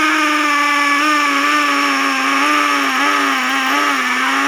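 Skil cordless hammer drill running under load, its bit boring into concrete: a steady motor whine whose pitch sags a little and wavers as the bit bites.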